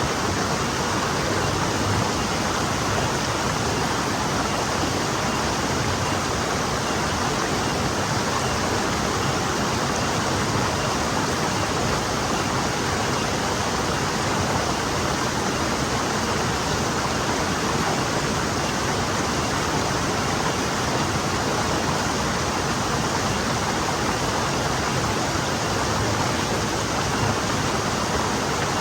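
Forest stream flowing, a steady, even rush of water with no breaks or distinct splashes.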